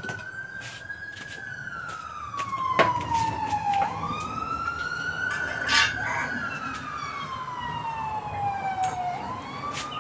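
A siren wailing: one tone that climbs quickly, then slides slowly down, repeating about every five seconds. A few sharp knocks and clicks sound over it, the loudest about three seconds and six seconds in.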